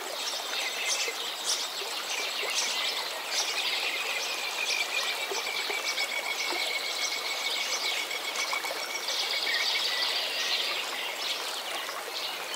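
Nature ambience: a steady rushing, water-like hiss with small bird chirps throughout. A long, thin, slightly falling whistle is held for about seven seconds in the middle.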